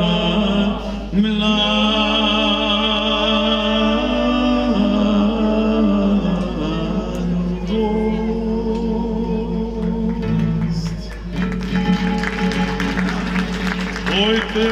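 Mixed choir singing with a male lead voice, accompanied by acoustic guitar, in long held notes. The singing breaks off briefly about ten seconds in and comes back with busier strumming.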